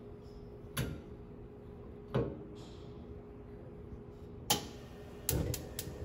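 Gas wok burner being turned on: sharp clicks from the control knob and the electric spark igniter, six in all, spaced a second or more apart and then three in quick succession near the end as the burner lights.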